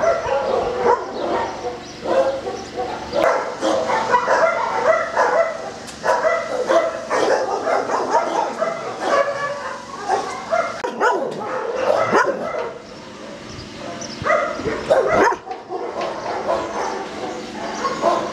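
Several kennelled dogs barking at once, overlapping barks that keep up without a pause.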